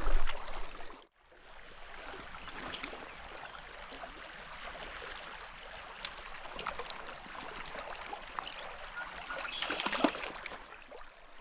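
Stream water running steadily, with a few short faint clicks and knocks on top.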